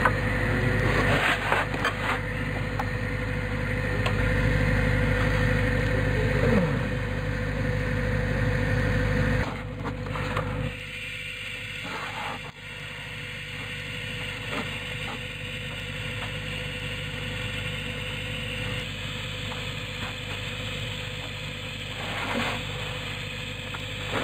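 An engine running steadily at a constant speed, louder for the first ten seconds and then dropping to a lower level.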